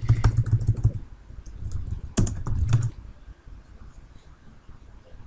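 Keys of a computer keyboard being typed in two short runs of quick keystrokes, the second ending a couple of seconds before the end, as a command is entered.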